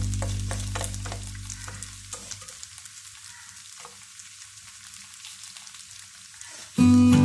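Potato and cheese pancake frying in a pan: a sizzle with scattered crackles and pops. Background music fades out over the first couple of seconds and starts again loudly just before the end.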